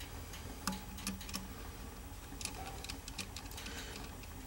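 Faint, scattered small clicks and taps of hands handling the barrel band and screwdriver on a Winchester 94 lever-action rifle.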